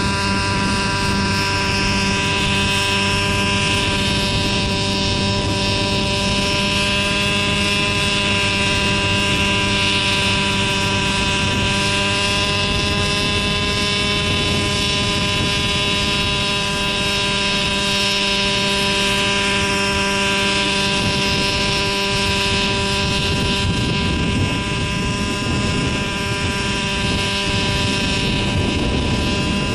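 JR Ergo radio-controlled helicopter with a gasoline two-stroke engine and Hanson exhaust, hovering low: the engine and rotor run steadily at an even pitch that drifts only slightly.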